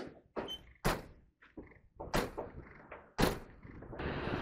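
A run of heavy metal knocks and clunks as tools and steel parts are worked at a truck's swing arm mount, the three loudest about a second apart. About four seconds in, a steady rushing noise starts.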